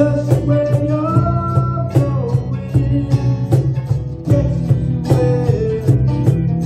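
Small band playing live: strummed electric-acoustic guitars over a steady cajón beat, with a man's voice singing the melody.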